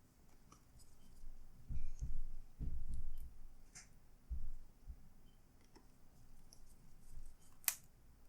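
Handling noise from reassembling a laptop: a run of dull thumps and knocks in the first half, light plastic clicks throughout, and one sharp click near the end.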